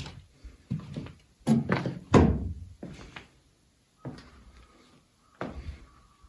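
A run of irregular thuds and knocks, the loudest about two seconds in, growing sparser and fainter after about three seconds.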